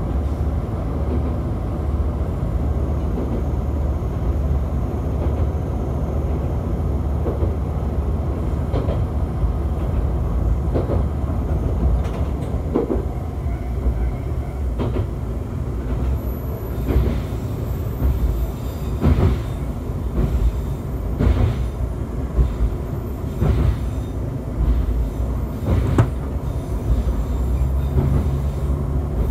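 AN-8800 diesel railcar running along the line, heard from inside the cab: a steady low engine drone with wheels knocking over the rail joints. The knocks come every couple of seconds in the second half.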